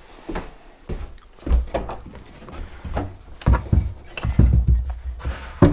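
A series of irregular knocks and dull thumps, with low rumbling between them.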